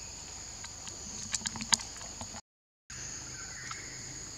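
Steady high-pitched drone of a forest insect chorus, with a few sharp clicks about a second and a half in. The sound cuts out for half a second a little past halfway.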